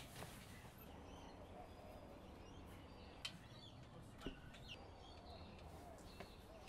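Near silence: faint outdoor background with a few faint bird chirps and an odd small click.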